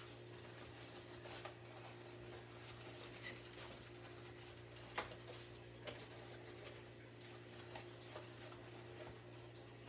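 Quiet handling noises: a few light clicks and taps, the clearest about halfway through, over a steady low electrical hum.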